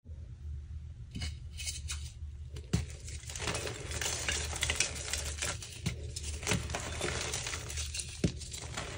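Dyed gym chalk reforms crushed and crumbled by hand: dry, crackly crunching with many small ticks and a few sharper snaps as pieces break apart.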